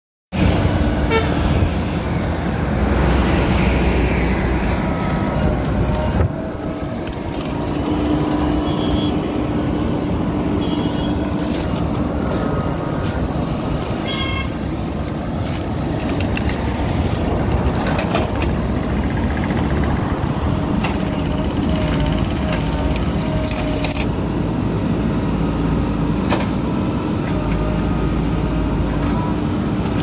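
Diesel engine of a JCB backhoe loader running steadily while its backhoe arm works, with a few sharp knocks over the engine noise.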